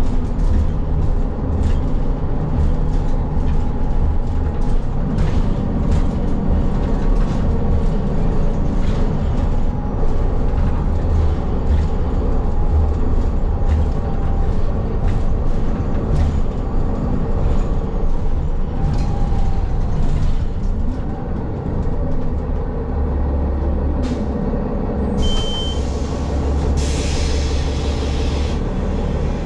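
City bus heard from inside the cabin: engine and road rumble with frequent rattles. Near the end, a short high beep, then two hissing releases of compressed air.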